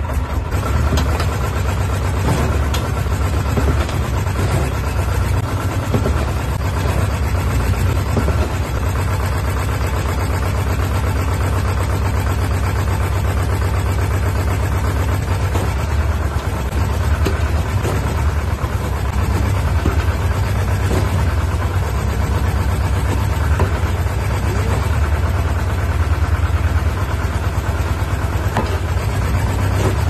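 Homemade mini excavator's engine running steadily while its hydraulic dozer blade is lowered to the ground and raised again.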